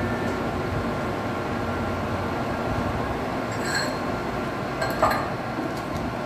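Metal lathe running steadily while threading a pipe, with a few light metallic clinks, the clearest about five seconds in.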